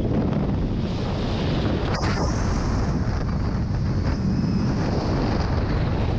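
Steady, loud rush of freefall wind buffeting a skydiver's camera microphone.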